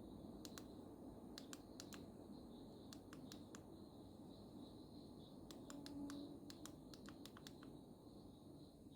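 Near silence with faint, short clicks coming in small scattered clusters over a low background hiss.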